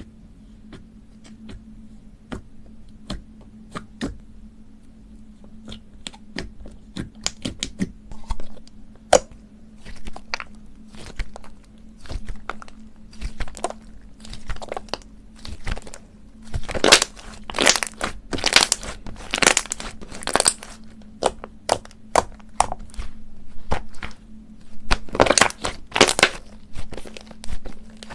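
Slime being squeezed and pressed by hand, giving sharp pops and crackles. They are sparse at first, then come thick and fast in louder bursts in the second half. A steady low hum runs underneath.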